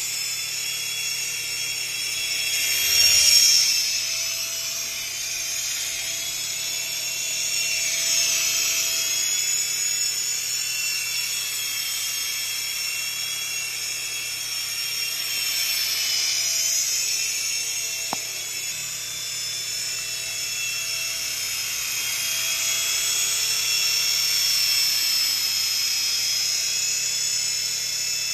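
Syma S5 coaxial mini RC helicopter in flight, its small electric motors whining and rotors whirring, the pitch wavering up and down with throttle. It swells louder briefly about three seconds in, and there is one sharp click a little past halfway.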